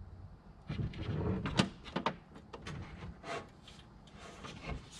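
A front mount intercooler being worked up into the car's front end, rubbing and knocking against the surrounding bodywork and brackets as it is pushed into place: a low scraping about a second in, then several sharp knocks, the loudest just after a second and a half.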